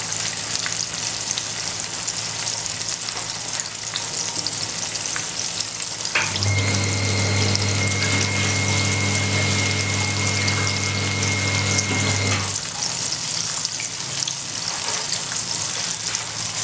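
Cornstarch-and-egg-coated tofu deep-frying in oil in a wok, not on high heat: a steady sizzle. About six seconds in, a steady low hum with a faint high whine joins it, runs for about six seconds, then stops abruptly.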